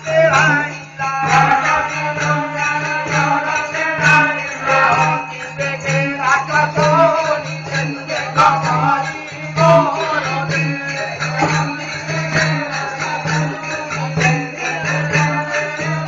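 Live folk-drama music: singing over quick rhythmic percussion with jingling metal percussion, and a steady low hum underneath, recorded loud.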